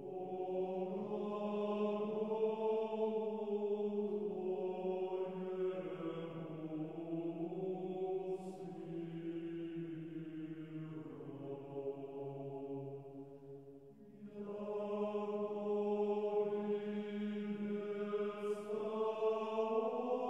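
Background music: slow vocal chant with long held notes over a steady low drone, breaking off briefly about two-thirds of the way through and then starting again.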